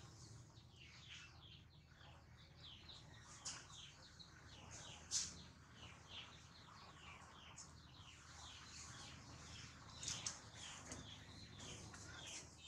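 Faint high chirping: many short calls, each falling in pitch, overlapping at several a second, with a sharp click about five seconds in.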